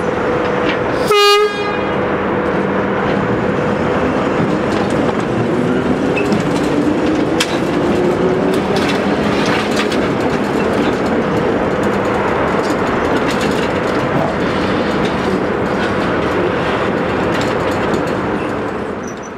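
Old narrow-gauge electric mining locomotive running on the yard tracks: a short horn blast about a second in, then a steady motor hum and rumble with a whine rising in pitch in the middle and sharp clicks of wheels over the rails.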